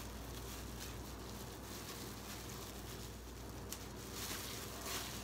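Plastic-gloved hands mashing avocado into sticky rice in a bowl, faint, over a steady low hum.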